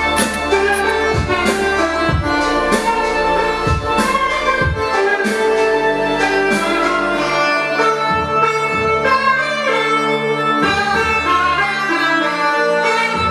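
Music with deep bass notes and drum beats played loudly over hi-fi loudspeakers with an active subwoofer. The lowest bass drops out about halfway through and comes back a few seconds later.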